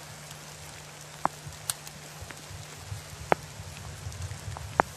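Footsteps tramping through tall dry grass, a steady crackle of stalks with a few sharp snaps, over a low steady hum.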